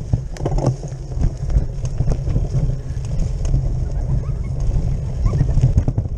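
Bicycle racing down a bumpy dirt trail, heard from the handlebar: a steady low rumble of wind and vibration, with frequent rattling clicks and knocks as the bike bounces over the ground.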